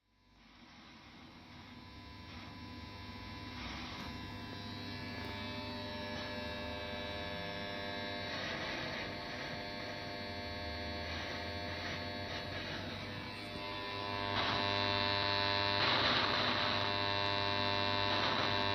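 Radio receiver picking up electrical interference across the 1700–3300 kHz band: a steady, many-toned buzz like mains hum. It fades in at the start and grows louder about fourteen seconds in. The owner believes it comes from a poorly designed switch-mode power supply in LED street lighting.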